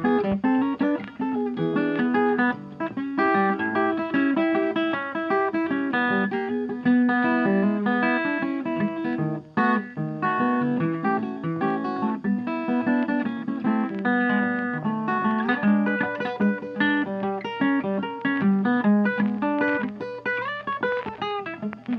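Background music of plucked and strummed acoustic guitar, with quick, continuously changing notes.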